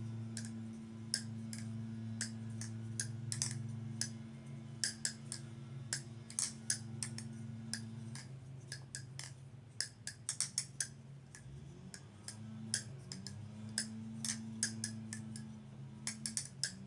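Balisong (butterfly knife) clicking as it is handled, with many sharp irregular clicks of its handles and metal parts, some in quick clusters, over a steady low hum.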